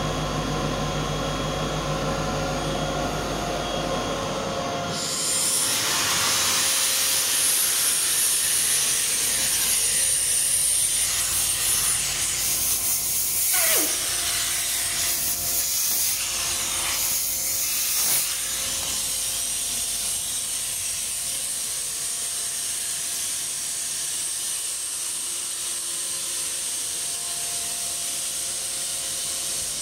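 A Kaeser SX 6 screw compressor running with a steady hum, then, about five seconds in, compressed air hissing steadily out of the end of a hose and blowing condensate water onto the floor.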